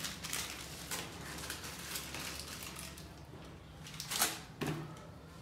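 Plastic spice packets rustling and crinkling as they are handled, with scattered light clicks and knocks and a sharper knock about four seconds in.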